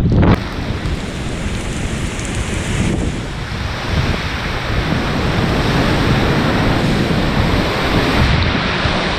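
Typhoon wind blasting across the microphone, with heavy surf crashing, a loud, continuous roar of noise.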